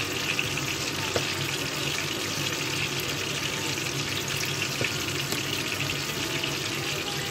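Steady hiss, with a faint low hum underneath and a few faint clicks.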